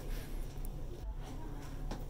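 Room tone: a steady low hum with faint background voices, and a single click near the end.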